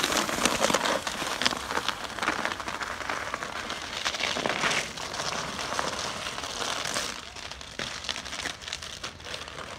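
Sled board with a child on it scraping and crackling over packed, icy snow as it slides away, the sound fading out after about seven seconds.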